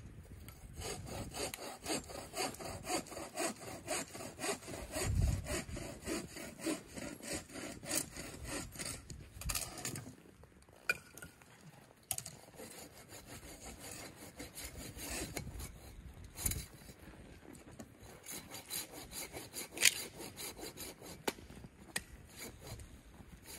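Hand saw cutting through wood in quick, even back-and-forth strokes, about three a second. The strokes stop briefly about ten seconds in, then carry on.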